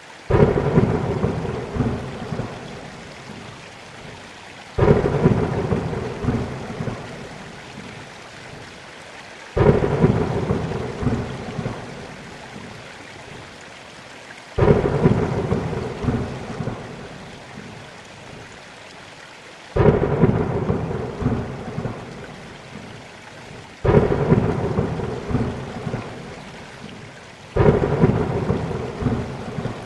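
Heavy rain in a thunderstorm, with a sudden thunderclap every four to five seconds, seven in all. Each clap starts sharply and rumbles away over a few seconds above the steady hiss of the rain.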